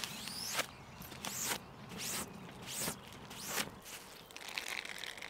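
A cloth swished in repeated wiping strokes, about one every 0.7 seconds, as condensation is wiped off a camping tarp. Near the end the strokes stop and give way to soft rustling as the damp cloth is wrung out.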